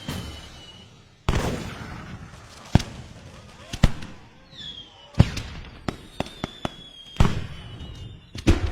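Cartoon sound effects: a string of sharp, firework-like bangs about a second apart, with smaller cracks between them and a short falling whistle near the middle.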